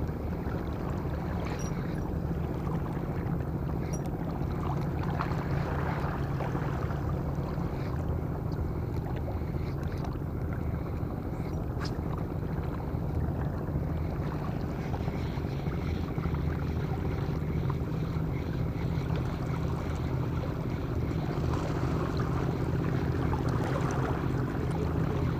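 Boat engine running steadily with an even low hum. A few faint clicks come now and then.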